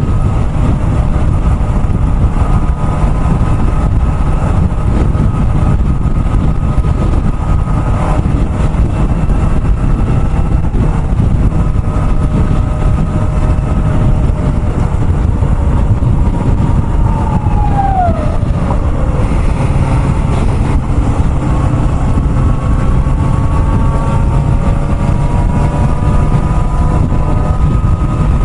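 Kawasaki ZX-4RR's inline-four engine running steadily at cruising speed, with heavy wind rush over the microphone. A little past halfway the engine note falls once and settles at a lower pitch.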